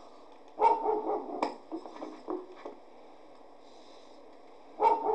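Dog barking in bursts: a run of barks starting about half a second in, a lull, then another burst near the end.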